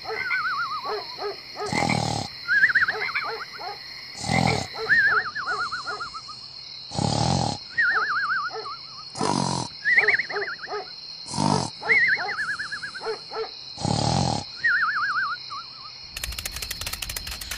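Cartoon snoring sound effect: a short rasping snore on the in-breath, then a warbling whistle that falls in pitch on the out-breath. It repeats about every two and a half seconds, six times, over a steady high hiss. A different clattering noise starts near the end.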